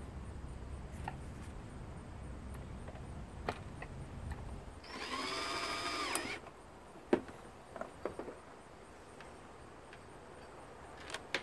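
Cordless drill/driver running for about a second and a half halfway through, driving a screw back into the foot massager's plastic shell: a motor whine that rises as it spins up, holds steady, then stops. A few small clicks and taps of plastic follow.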